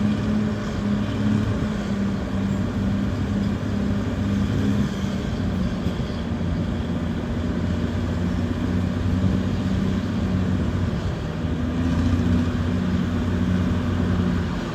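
Heavy earthmoving machine's diesel engine running steadily, its pitch shifting slightly a couple of times.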